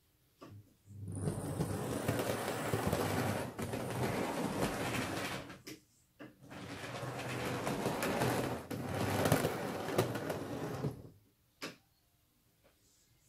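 Model railway diesel locomotive running on the track, its small electric motor and wheels making a steady running noise. It runs, stops briefly about six seconds in, then runs again and stops near the end, with a few short clicks around the runs.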